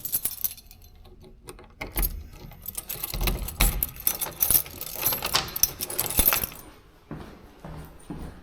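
Handling noise, a close run of small clicks and rattles, busiest from about two seconds in until shortly before the end.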